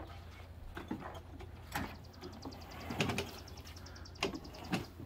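Kids' electric ride-on UTV rolling over bumpy grass: scattered knocks and clicks from its plastic body and wheels over a low steady hum, with a brief burst of rapid high ticking midway.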